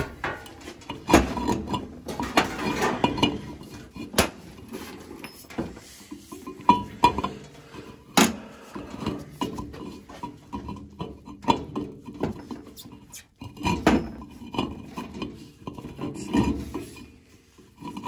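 Metal hand tools and pipe parts clinking and knocking at irregular moments as they are handled and set down, with short scraping between.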